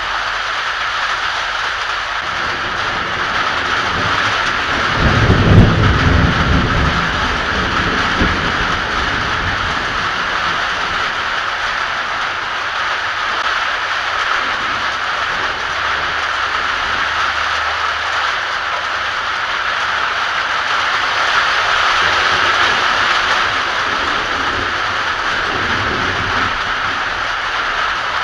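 Heavy rain pouring with a steady hiss, with a low rumble of thunder about five seconds in that fades over a couple of seconds.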